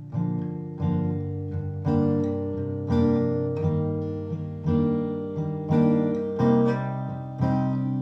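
Acoustic guitar playing ringing chords, one struck about every second, with no singing over it.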